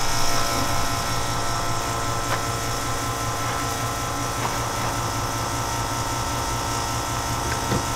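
Electric motor of a self-serve biodiesel dispenser pump humming steadily, switched on by unlatching the pump, with a couple of faint clicks.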